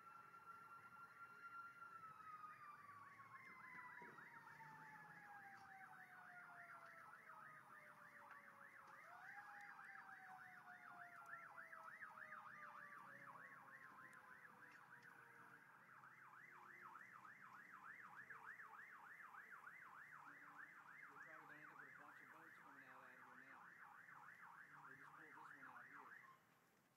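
Faint emergency-vehicle sirens. One wail slowly glides down, jumps up about nine seconds in, then falls away. Over it a second siren yelps rapidly, about three cycles a second, until it cuts off suddenly near the end.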